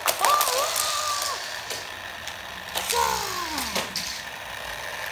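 High, wavering whistle-like sound effects made by mouth: a wobbling tone about a second long, then a steeply falling glide about three seconds in. Sharp clicks of toys knocking together come right at the start.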